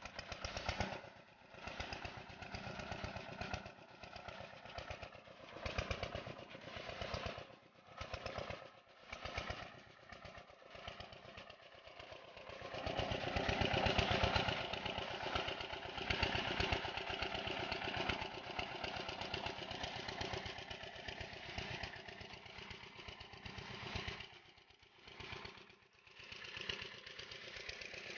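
8 hp single-cylinder diesel engine driving an irrigation water pump, running with a fast, even chugging firing beat. It grows louder about halfway through and eases off briefly twice.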